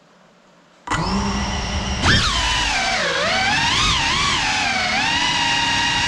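A GEPRC Cinelog35 cinewhoop's brushless motors and ducted props spin up about a second in, whining at idle. About two seconds in they are throttled up for takeoff, and the whine rises sharply in pitch, then wavers up and down with the throttle.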